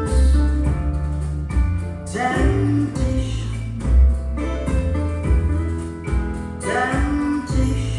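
A recorded song with a singing voice over guitar and a heavy bass line, played back through Thiel CS 2.2 floorstanding loudspeakers. Sung phrases begin about two seconds in and again near the end.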